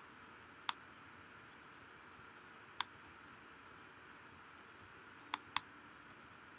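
Computer mouse button clicks: a single click about a second in, another near the middle, and a quick double-click near the end, over a faint steady hiss.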